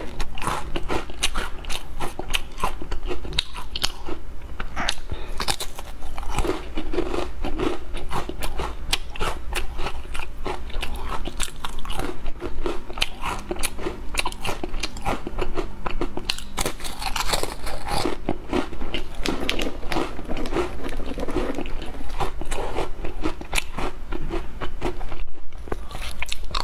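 Crisp caramel biscuits being bitten and chewed: dense, irregular crunching throughout.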